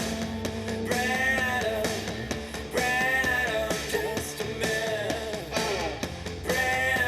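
Rock music played back through an Akkord 201 stereo amplifier and its speakers, picked up by a camera's built-in microphone.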